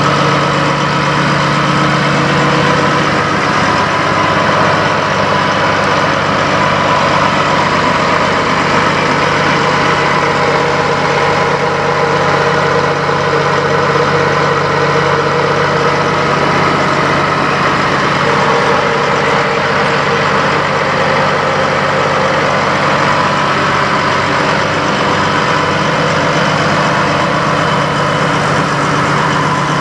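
Peterbilt semi truck's diesel engine idling steadily.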